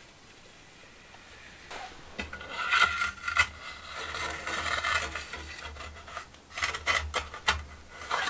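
Irregular scraping and rubbing, with several sharp clicks and knocks, starting about two seconds in.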